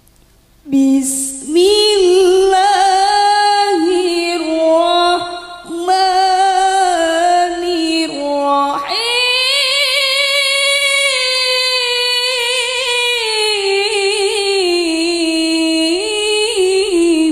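A woman's solo voice reciting the Qur'an in the melodic, ornamented tilawah style into a microphone, unaccompanied. It comes in about a second in with a long phrase of wavering, melismatic turns, breaks for a breath about eight seconds in, then rises into a second long held phrase.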